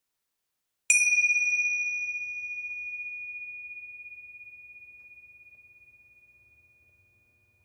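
A small meditation bell struck once, ringing with a clear, high tone that fades slowly over about six seconds, sounded to mark the end of the meditation.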